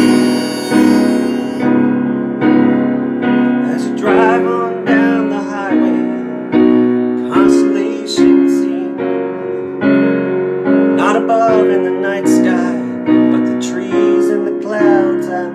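Keyboard playing steady repeated chords, a little over one a second, with a harmonica in a neck rack playing a wavering melody over them. This is the instrumental break of a solo folk-style song.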